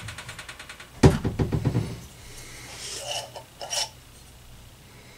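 Kitchen cookware clatter around a cast-iron Dutch oven: a sharp metallic clank about a second in, followed by a brief fading rattle. Softer knocks and scrapes follow a couple of seconds later.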